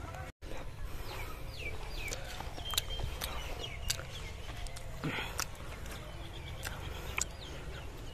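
Outdoor ambience: birds chirping in short, falling calls over a steady low rumble, with scattered sharp clicks. The sound drops out completely for a moment near the start.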